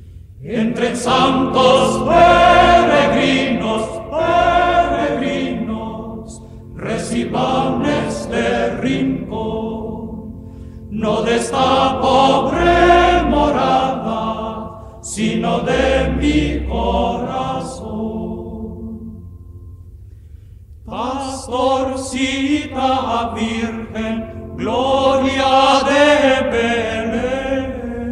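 Music: a song sung by a choir, in phrases of a few seconds with short pauses between them.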